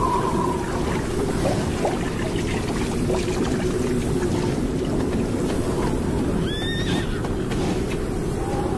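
Namib desert horse whinnying briefly about two-thirds of the way through, over steady desert wind noise.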